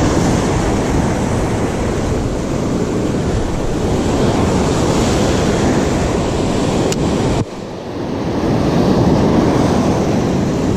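Surf washing and breaking around the legs, with wind rushing over the microphone. A single faint click comes about seven seconds in; half a second later the rush drops suddenly and then builds back up.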